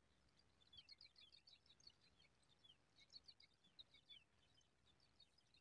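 Faint, rapid high-pitched bird chirping, many short notes coming in quick clusters.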